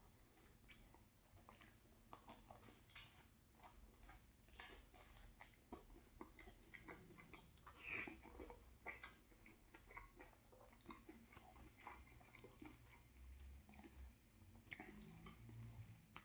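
Faint, close-up chewing and biting of a soft chicken-and-cheese sub sandwich, with irregular small wet clicks and mouth sounds and a slightly louder bite about halfway through.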